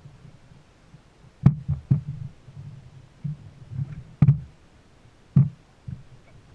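Irregular dull thumps with four sharp knocks at uneven spacing, over a low rumble.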